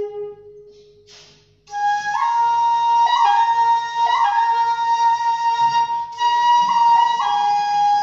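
Handmade 1.7 jimori shakuhachi of madake bamboo being played: a low held note fades out at the start, a short breathy puff follows, and after a brief pause a new phrase begins that steps up to a long held higher note, broken by quick dips in pitch, before stepping back down near the end.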